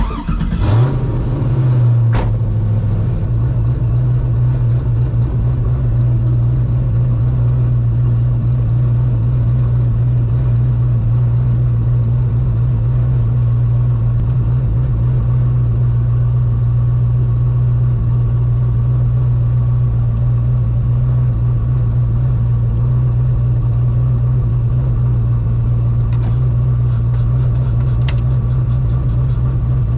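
Turbocharged 5.3 L LS V8 revs up briefly near the start, then runs steadily at one unchanging engine speed, ahead of a launch.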